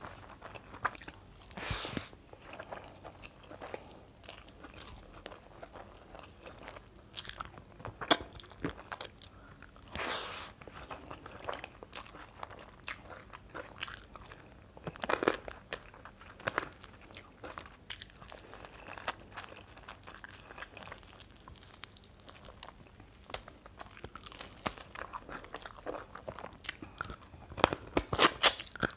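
Close-up chewing of mouthfuls of spiced rice and mutton curry eaten by hand: irregular clicks and crunches, with a cluster of louder ones near the end.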